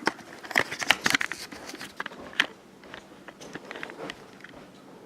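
Irregular sharp clicks and knocks, several close together in the first couple of seconds, then fainter and sparser.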